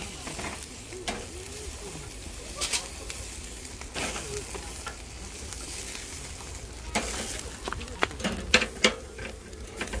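Lamb skewers and sausages sizzling over a charcoal grill, a steady crackling hiss with sharp pops and clicks now and then, most often in the last few seconds.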